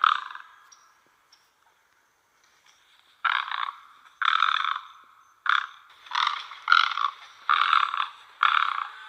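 Great egret giving harsh, croaking calls: one at the start, then after a pause of about three seconds a run of about seven calls, roughly one a second.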